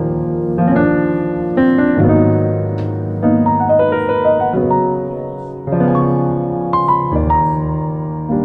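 Background piano music, with chords and melody notes struck one after another in a slow, even flow.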